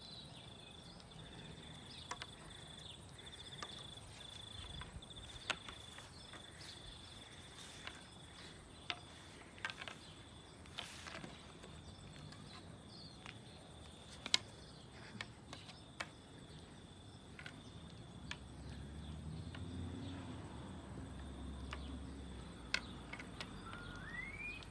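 Faint, steady high-pitched insect trill, like a cricket, through the first half, with scattered small clicks and taps. A low rumble swells in the last several seconds, and a short rising chirp comes near the end.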